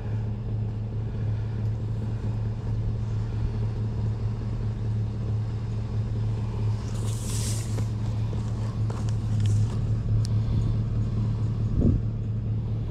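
Vehicle engine running steadily while driving, a constant low drone. A brief hiss comes about seven seconds in and a short thump near the end.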